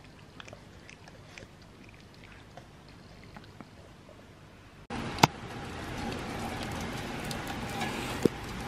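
A quiet room with a few faint ticks, then, about five seconds in, steady rain falling on wet paving. A single loud sharp click comes just after the rain begins.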